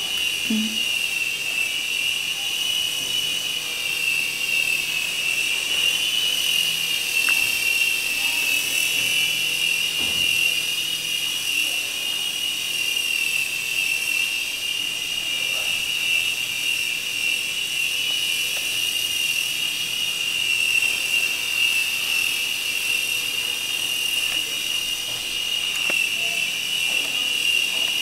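Electric motor and rotors of a small toy 2-channel RC helicopter in flight: a steady high whine that wavers slightly in pitch.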